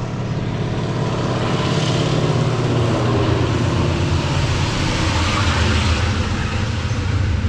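Small propeller plane flying low overhead, its engine drone growing louder and its pitch dropping as it passes.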